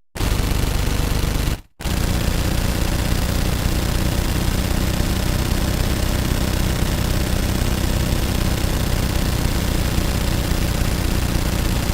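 Automatic gunfire in long sustained bursts, the shots so rapid they run together into a continuous rattle. The firing stops briefly about a second and a half in, then resumes without a break.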